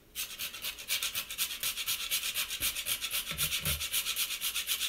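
A whole nutmeg being grated on a fine rasp grater: quick, even back-and-forth scraping strokes with a dry, hissy rasp.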